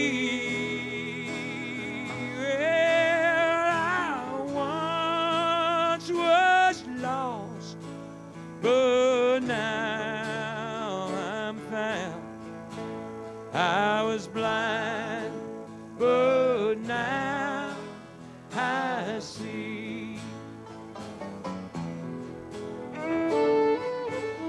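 Country band playing a slow instrumental: a fiddle carries the melody in long, wavering notes with vibrato over acoustic guitar and bass backing.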